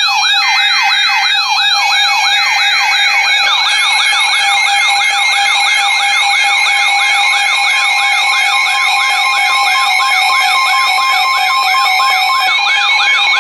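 Emergency alert tones: a fast siren-like sweep rising over and over, about three times a second, laid over steady alert tones. A further steady tone joins about eight seconds in. This sequence precedes a severe thunderstorm warning being read.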